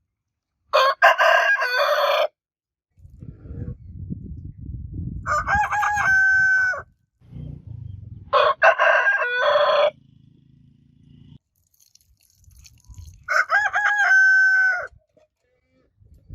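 Roosters crowing, four separate crows about one and a half seconds each, spaced a few seconds apart, with a low rumble between the middle crows.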